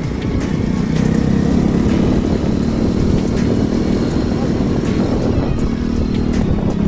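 Vehicle engine running at a steady cruise with road noise, heard from on board the moving vehicle: a continuous low drone.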